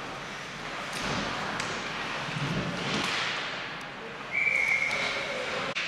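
Ice hockey play: skates scraping and sticks knocking on the ice over the hiss of the rink. A little past four seconds in, a single high whistle blast lasting about a second.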